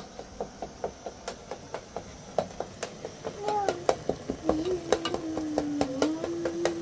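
Steady rhythmic knocking, about three strokes a second, like a utensil working in a pot. About halfway in, a voice joins, humming one long held note.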